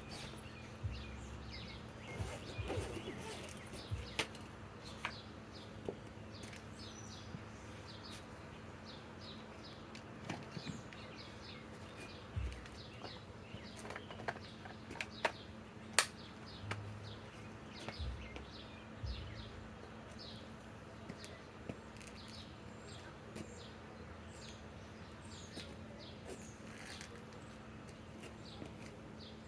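Quiet outdoor background with many small birds chirping, over a faint steady hum. There are occasional low knocks and light clicks, with one sharp click about 16 seconds in.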